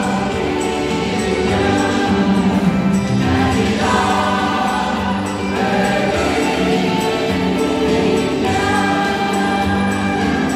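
Mixed church choir of women and men singing a Christian song in harmony, holding chords for a second or two before moving together to the next.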